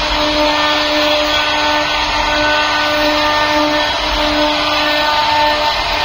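CNC router spindle running and cutting a wooden door panel, a steady whine of several held tones over a rushing cutting noise.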